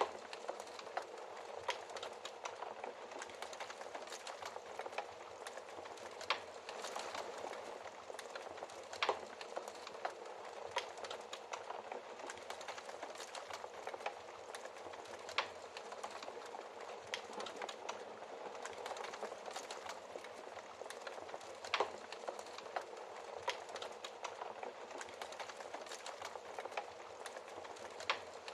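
Wood fire burning in a fireplace: a steady hiss of flames with frequent irregular crackles and sharper pops, a few louder ones standing out.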